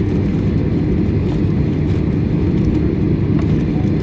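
Steady low rumble inside the cabin of a Boeing 737 taxiing: its engines at taxi power and the airframe rolling over the taxiway.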